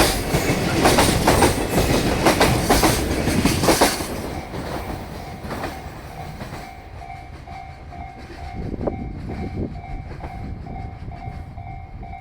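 Freight train's Koki container flatcars clattering loudly over rail joints in rapid clacks that die away about four seconds in. After that a level-crossing bell keeps ringing in a steady pulsing tone, with a few faint wheel clacks from the receding train.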